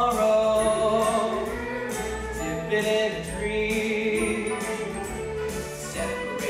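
Stage musical number: a chorus of voices singing sustained notes over an instrumental accompaniment.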